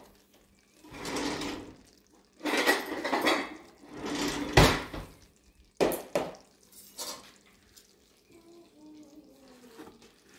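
Kitchen clatter: dishes and utensils handled and set down on a counter, a few separate scrapes and knocks with quiet gaps between, the loudest a sharp knock about four and a half seconds in.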